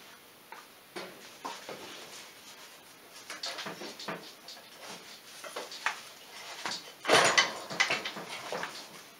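Scattered metal clunks and scrapes as a Polaris 400 two-stroke ATV engine is worked loose and pulled out of its frame, with the loudest burst of clatter about seven seconds in.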